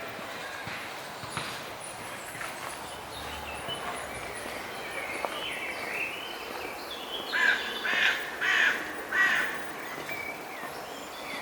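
A crow cawing four times in quick succession, harsh and loud, over faint birdsong and outdoor background hiss.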